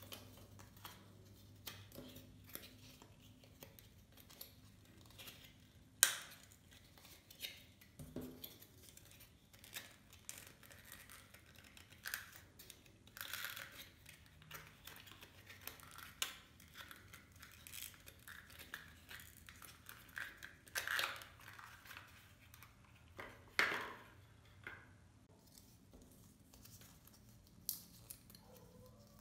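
Paper-foam puzzle pieces handled and slotted together: scattered short rustles, scrapes and clicks of the foam board, the sharpest snap about six seconds in.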